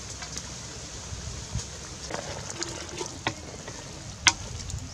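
Pot of duck soup bubbling over a wood fire while it is stirred with a wooden spoon: a steady low bubbling hiss with scattered light clicks and knocks, the sharpest about four seconds in.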